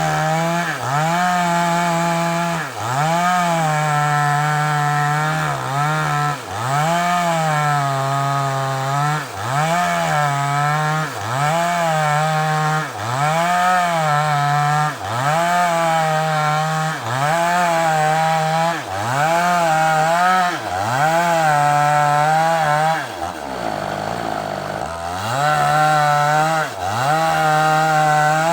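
Chainsaw running at high revs while cutting through a large sengon log. The engine pitch dips under load and picks up again every second or two, then drops lower for a couple of seconds about two-thirds of the way through before revving back up.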